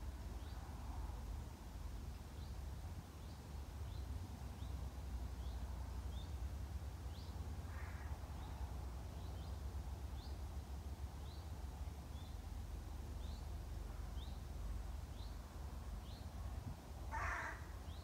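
A small songbird repeats a short, high chirp about once or twice a second. A crow caws harshly twice, about halfway and near the end, the second caw the loudest sound. A low steady rumble runs underneath.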